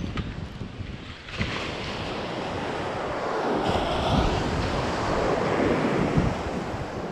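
Ocean surf breaking and washing up the beach, with wind buffeting the microphone. The wash swells about a second in and stays loudest through the middle.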